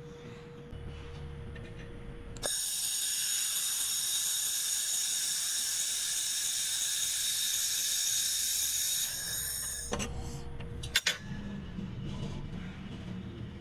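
Handheld fiber laser welder firing a weld on carbon steel: a loud, steady high hiss with a high-pitched whine from the welding gun starts abruptly about two and a half seconds in and stops after about seven seconds. A few sharp clicks follow, over the machine's low hum.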